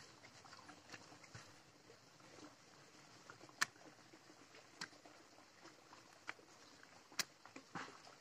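Faint, scattered sharp clicks and soft crinkles, about five in all, from a hand laying small raw fish one by one on a banana leaf.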